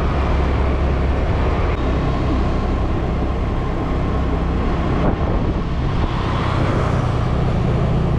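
Honda scooter riding along at a steady speed: the engine running under steady wind and road noise on the rider's microphone.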